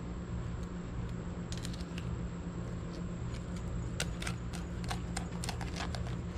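Fillet knife cutting into a yellow jack and scraping over its bones and the table: a scatter of short scratchy clicks, bunched about one and a half seconds in and again from about four to six seconds, over a steady low hum.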